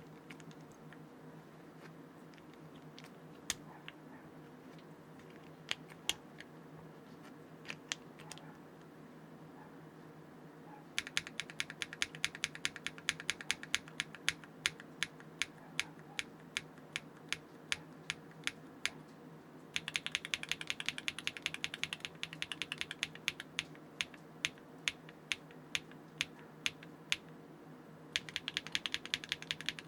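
Custom mechanical keyboard with Keygeek linear switches and ABS keycaps, without foam, being typed on. A few scattered keystrokes come first, then from about eleven seconds in there are three runs of fast, continuous typing. A faint steady hum sits underneath.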